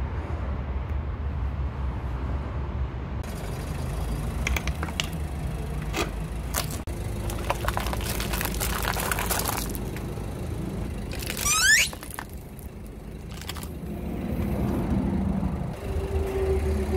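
A Ford car's engine running low under its tyre, with scattered cracking and a stretch of crackling and crunching as objects are crushed under the wheel. A brief rising squeal, the loudest sound, comes about two-thirds of the way through.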